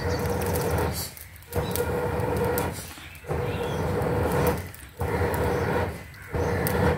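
Blowing through a metal blow pipe into a wood fire to fan the flames: about five long breaths of rushing air, each a second or more, with short pauses between them to inhale.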